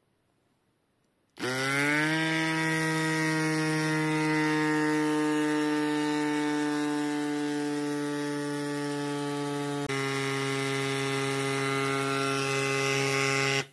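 Cycplus mini electric bike pump running on a bicycle inner tube's valve, inflating it. It is a steady motor hum and whine that starts about a second and a half in and settles slightly lower in pitch just after starting. The pitch shifts a little about ten seconds in, and the pump stops suddenly near the end.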